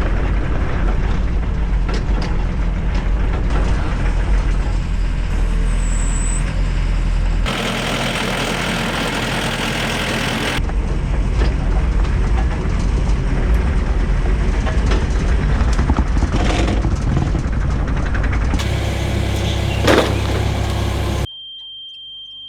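A heavy engine running with a strong low rumble, heard in several stretches that change abruptly, as if cut together. Near the end the rumble drops away to a quiet stretch with one steady high tone.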